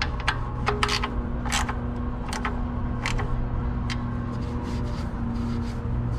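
A steady machine hum with scattered sharp clicks and knocks; the hum cuts off suddenly at the very end.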